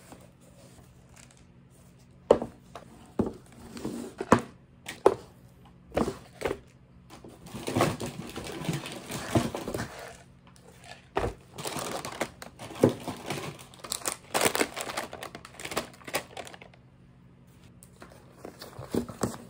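Food packaging being handled: plastic-wrapped instant noodle packs crinkling, and a series of sharp knocks as noodle cups and boxes are set down on a table.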